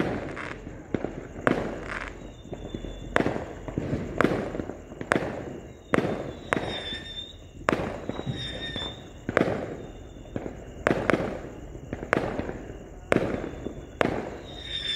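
Aerial fireworks bursting, one bang after another at uneven intervals of about half a second to a second, each trailing off, with a few faint high whistles between them.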